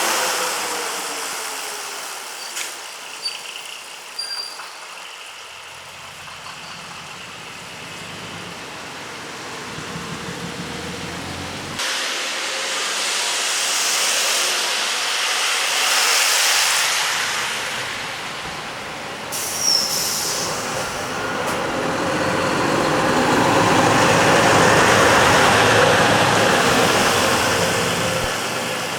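Heavy diesel trucks driving past one after another, their engines rumbling louder and softer as each one goes by, the loudest passing near the end. Sudden hisses of air come about twelve and nineteen seconds in.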